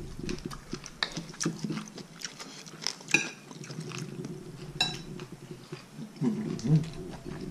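Metal spoons clinking and scraping against ceramic plates and bowls during a meal, a sharp clink every second or so, the loudest about three and five seconds in, with chewing and the sipping of soup from a spoon.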